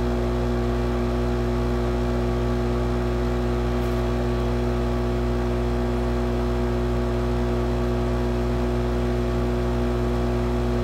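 Hot-air rework station running steadily: a constant hum from its air pump with the rush of hot air from the nozzle, blowing onto a surface-mount chip to melt its solder. The solder is not yet letting go.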